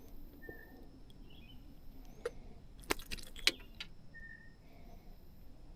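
Faint handling noise: a cluster of sharp clicks and rattles about three seconds in, with two short, high chirps, one near the start and one about four seconds in.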